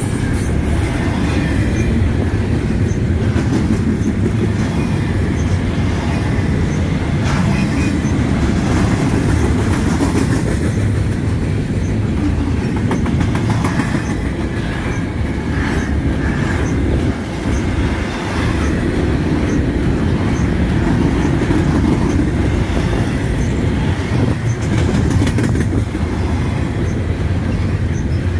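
Double-stack container freight train rolling past at close range: a steady loud rumble of steel wheels on rail and well cars, with scattered clicks from the wheels.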